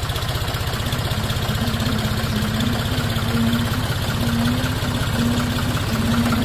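Tractor diesel engines running hard under load in a tractor tug-of-war, with a steady, rapid low firing beat that grows slightly louder toward the end.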